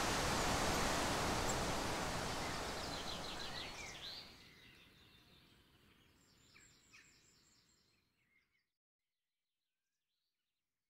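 Steady outdoor ambient noise that fades out over several seconds, with small birds chirping faintly as it fades.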